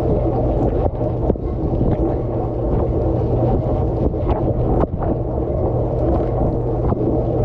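Dishwasher running, heard from inside the tub: water from the spray jets rushing and splashing over the dishes, over the steady hum of the circulation pump, with a few sharper splashes or knocks now and then.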